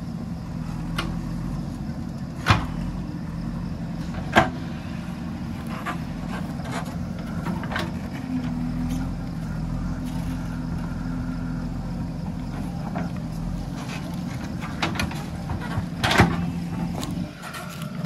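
JCB backhoe loader's diesel engine running steadily while the backhoe digs, with a few sharp knocks, the loudest about two and a half seconds in, again near four and a half seconds, and near the end.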